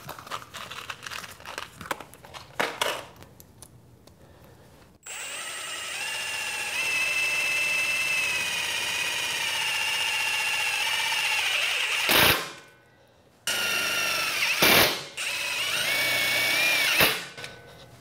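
Milwaukee brushless cordless impact driver driving self-drilling sheet metal screws into a 20-gauge steel bracket, after a few seconds of handling clicks. The motor whines steadily for about seven seconds, stops after a short loud burst, then runs again for about three and a half seconds, with another loud burst partway through and a rise in pitch just before it stops.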